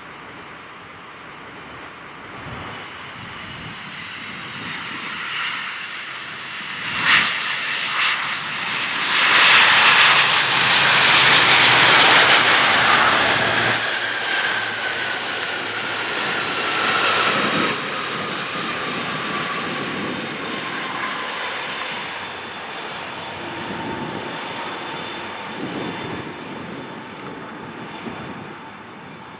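Three-engined McDonnell Douglas MD-11 freighter landing: jet engine noise builds, two sharp thumps come about seven and eight seconds in, and the engines swell to their loudest rush as the aircraft rolls out on the runway. The noise then fades with a whine that falls steadily in pitch as the engines spool down.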